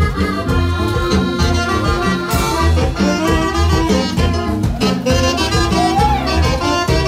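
Live Latin dance music from a small band, an accordion over a steady bass beat, with a cymbal crash about two seconds in.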